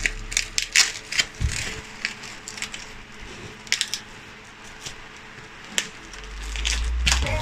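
Cardboard box and plastic wrapping being handled and pulled open, crinkling and crackling: a quick run of sharp crackles in the first second or so, then a few scattered ones.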